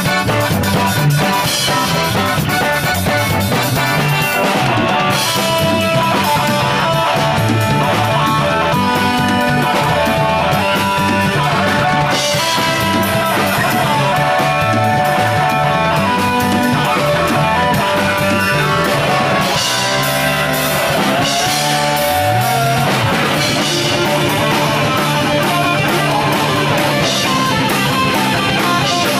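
Band playing punk rock live on electric guitars, bass and drum kit. A run of sliding low notes comes about twenty seconds in.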